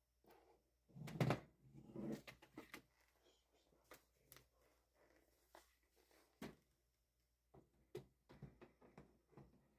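Irregular plastic clicks and knocks of toner cartridges and drum units being handled and fitted in a laser printer, the loudest a second or two in, followed by scattered lighter clicks.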